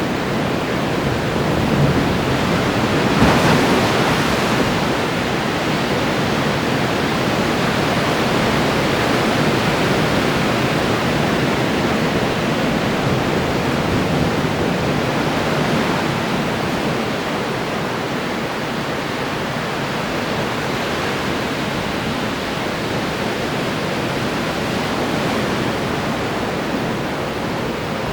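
Ocean surf breaking continuously on the shore, a steady wash of waves with one louder break about three seconds in.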